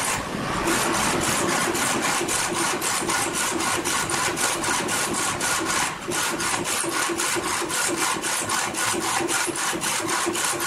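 A4 UV flatbed printer running a print pass: the print head carriage travels along its rail with a rapid, even ticking of about five a second. The ticking eases briefly about six seconds in, as the carriage reaches the end of its travel and turns back.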